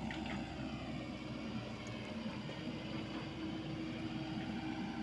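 Diesel engine of a Komatsu PC78US mini excavator running steadily as the machine works, a continuous even hum without breaks.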